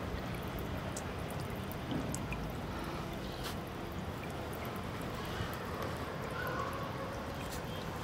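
Water from a small floating solar fountain pump spraying up and falling back onto a tub of water: a steady splashing patter with scattered droplet ticks.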